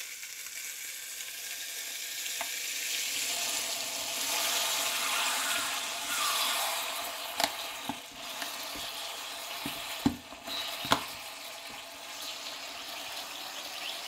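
Tteokgalbi patties and a slice of cheese sizzling inside a closed electric waffle maker, a steady hiss of frying fat that swells in the middle, with a few sharp pops.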